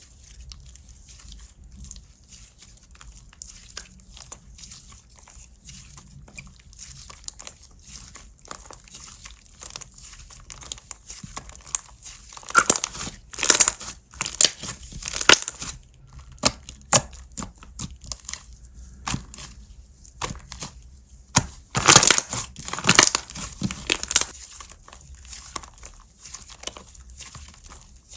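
Hands playing with slime, pressing and stretching it: a steady run of small sticky crackles and clicks, with two louder stretches of popping about halfway through and again a few seconds later.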